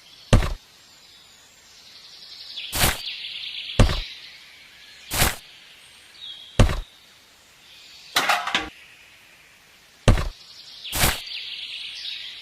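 Sharp knocks or blows, about nine, spaced roughly a second or so apart, with a faint hiss between some of them.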